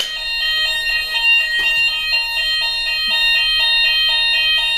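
Fire alarm sounders going off during a weekly alarm test, triggered from a manual call point, before being silenced at the panel. It is a loud electronic tone alternating between two pitches a few times a second, with steadier high tones under it.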